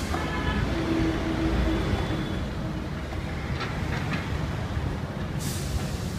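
Steady low rumble of heavy vehicle engines, with a few light clicks and a short hiss near the end.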